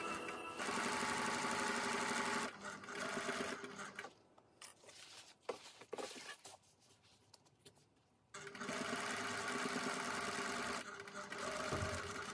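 Juki SL-300EX straight-stitch sewing machine running in bursts: it stitches steadily for about two seconds, stops for a few seconds with only a few light clicks of handling, then runs steadily again for a few seconds near the end.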